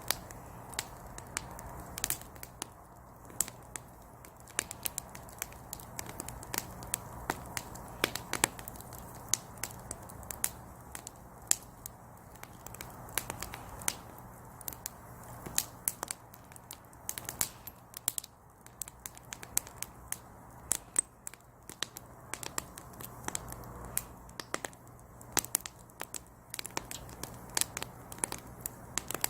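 Wood burning in a small brazier, crackling with many irregular sharp pops and snaps.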